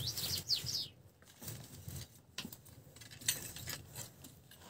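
Burning straw and twigs crackling in a clay bread oven: scattered sharp ticks and pops over a faint hiss, with a few short high chirps in the first second.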